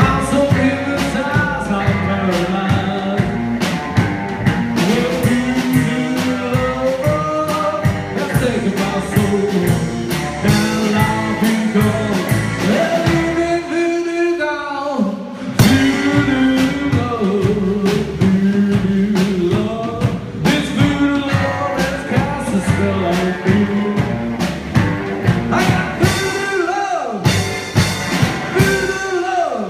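Rockabilly trio playing live: Gretsch hollow-body electric guitar, upright double bass and drum kit. About halfway through the band drops away for a couple of seconds, then comes back in together on a loud hit.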